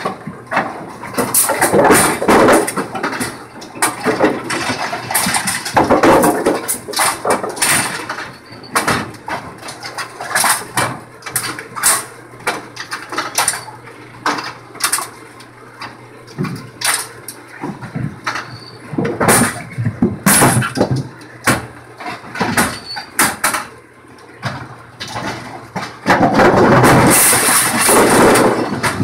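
AMF 82-70 bowling pinsetter running its cycle: irregular metallic clanks and knocks from its moving linkages and pins over a faint steady motor hum. A louder, continuous clatter lasts about three seconds near the end.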